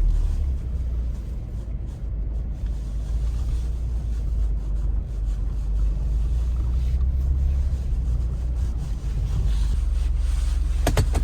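Steady low rumble of a running vehicle with some wind noise, and a couple of sharp clicks near the end.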